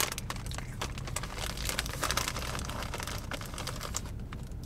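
Crinkling of a plastic snack bag being handled, a dense run of small crackles that thins out near the end.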